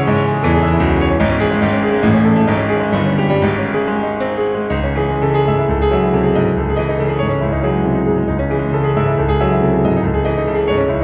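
Instrumental background music led by piano, with a deeper bass part coming in about halfway through.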